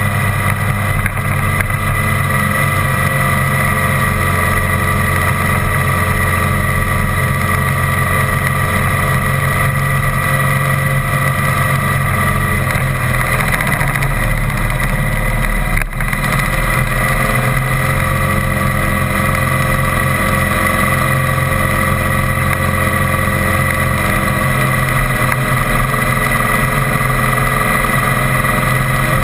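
Motor vehicle engine running steadily while driving, with road and wind noise. Its low note shifts about halfway through, and there is a brief click near the middle.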